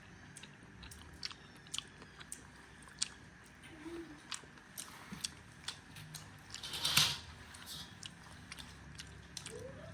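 Scattered light clicks and small crunching knocks, with one louder crunch about seven seconds in.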